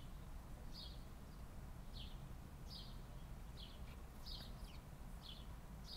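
A bird chirping, short high single notes repeated about once a second, heard faintly.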